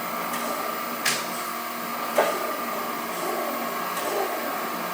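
Chevalier FSG-1020AD automatic surface grinder running with a steady hum from its spindle and hydraulics, with two sharp clacks about a second apart early on. The table is finishing its spark-out passes with no infeed and heading to park on the left.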